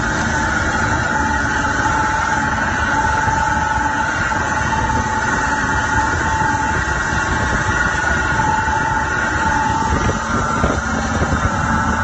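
Motorboat engine running steadily under way, mixed with wind rushing over the microphone, with a faint whine that comes and goes.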